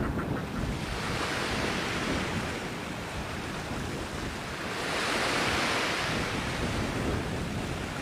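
Rushing noise of sea surf and wind, swelling about a second in and more strongly around five seconds in.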